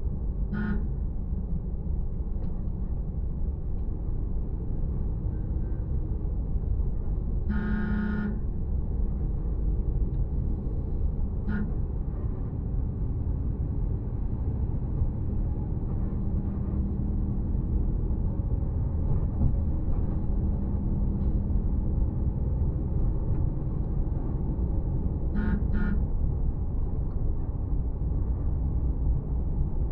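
Steady road and engine rumble of a moving vehicle, with vehicle horns tooting over it: a short beep about half a second in, a longer honk at about eight seconds, another short beep near twelve seconds, and a quick double beep near the end.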